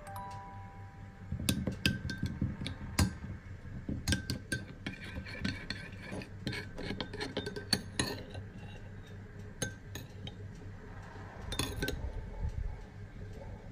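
A metal spoon stirring a dark sauce in a small glass bowl, clinking and scraping against the glass again and again at an irregular pace.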